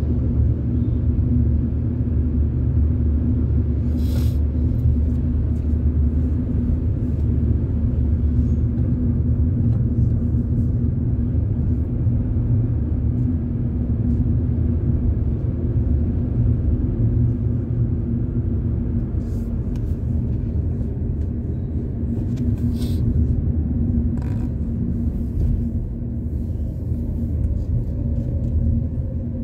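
Steady engine and road rumble of a car being driven, heard from inside the cabin, with a constant low hum under it. A few brief clicks cut through, about four seconds in and again around the middle and late part.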